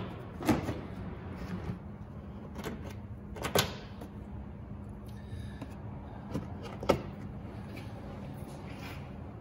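Plastic push-pin clips snapping into the plastic radiator core support cover as they are pressed home by hand. The sound is a few sharp clicks and knocks on the plastic, the loudest about three and a half seconds in and another near seven seconds, over a low steady hum.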